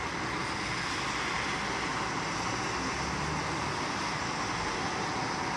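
Steady traffic noise from a wet multi-lane road: tyres hissing on rain-soaked asphalt over a low rumble of passing cars.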